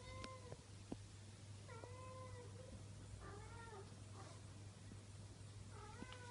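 Four-week-old Bengal kittens mewing: four short, high calls spread out across a few seconds, some bending up and down in pitch, over a faint steady low hum.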